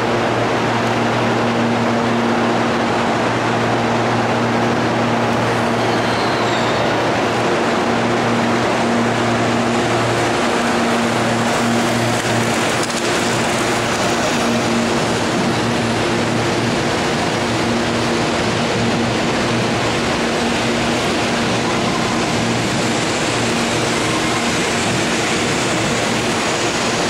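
CPTM Series 7000 electric multiple-unit train pulling out of a station: steady, loud running noise from the passing cars with a constant low electrical hum underneath.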